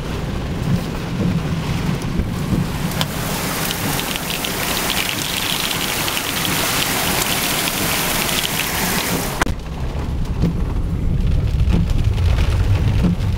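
Floodwater rushing and splashing around a car as it drives through about a foot of water. About three seconds in the door is opened and the rushing water becomes loud and bright, until the door shuts with a thump about nine and a half seconds in, leaving the muffled rumble of the car pushing through the water.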